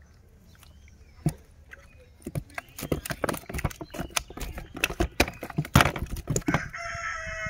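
Close rustling and irregular clicking from a freshly caught fish, cast net and dry straw being handled, starting about two seconds in. A short pitched call comes near the end.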